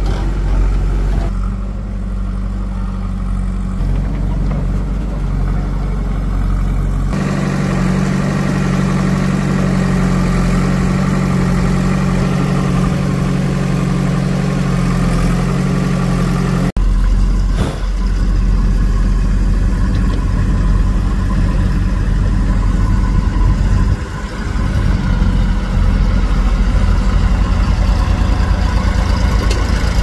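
Heavy diesel machinery engine running steadily, with sudden shifts in its note about 7 seconds and about 17 seconds in.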